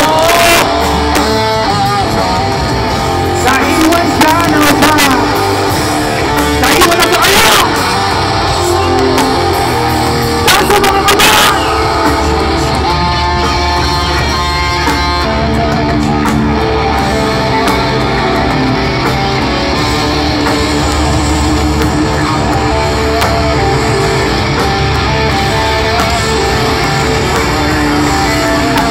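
Live rock band playing loud, with electric guitars, bass and drums. There are several loud crashes in the first twelve seconds or so.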